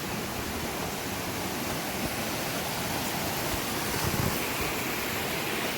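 Steady rush of a fast-flowing mountain creek.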